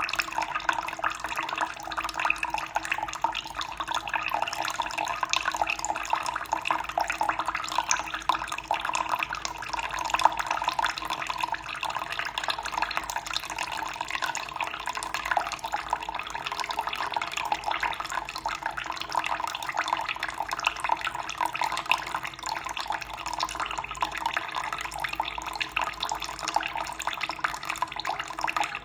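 Water running steadily, a continuous splashing flow like a stream of water from a tap or small spout pouring into water.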